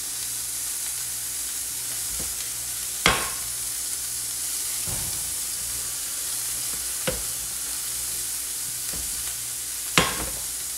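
Diced onions frying in olive oil in a nonstick skillet: a steady sizzle, the onions just starting to brown. A few sharp knocks of the pan break through, the loudest about three seconds in and near the end.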